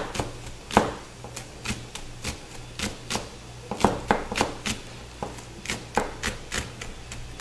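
Chef's knife chopping green onions on a cutting board: a quick, slightly uneven run of sharp knocks, about three a second.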